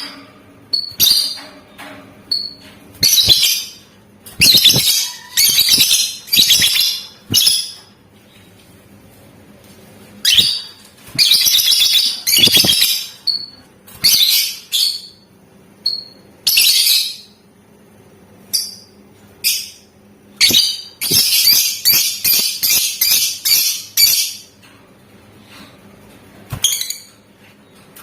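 Lovebird calling in repeated harsh, high-pitched bursts of chatter, with short shrill chirps between them. About three quarters of the way in comes a long, fast rattling trill, the 'ngekek' song that keepers prize in a lovebird.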